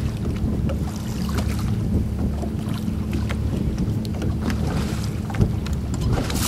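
Wind buffeting the microphone and choppy lake water slapping against a boat hull, with many short sharp ticks and a steady low hum underneath.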